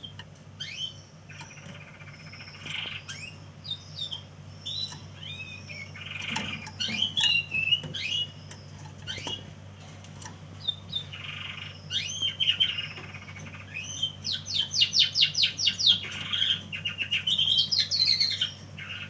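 Young male red lipochrome canaries singing in short chirps, whistled sweeps and scratchy phrases, with a fast trill of rapidly repeated notes a little after the middle. A low steady hum sits underneath.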